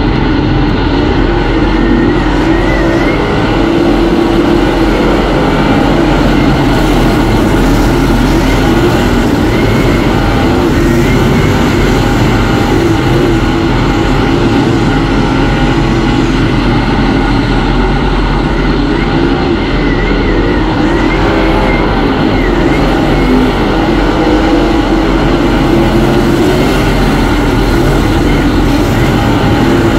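Dirt-track race car engine running hard and steady at racing speed, loud throughout.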